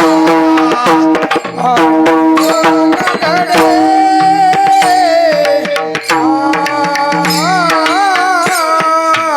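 Marathi Varkari abhang being performed: a sung, ornamented melody with sustained accompanying tones over a steady hand-drum rhythm of frequent sharp strokes.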